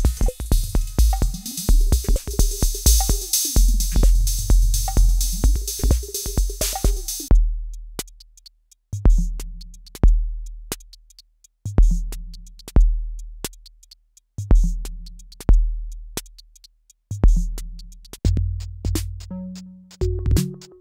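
Roland TR-6S drum machine playing a busy pattern with bright hi-hat hits and a tone that glides up and down. About seven seconds in the highs cut off and it switches to a sparse pattern of deep kick drums with long decays and light ticks, and near the end another pattern with a denser low line starts.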